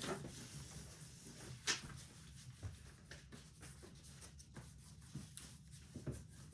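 Faint scratching and rubbing of oil pastels and fingertips on paper, with a few light clicks and knocks on a wooden tabletop, the sharpest about two seconds in.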